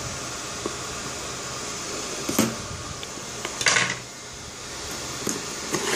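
Cardboard router box being handled to open it: two short scraping rustles over a steady hiss, the second about a second after the first, with a few faint clicks.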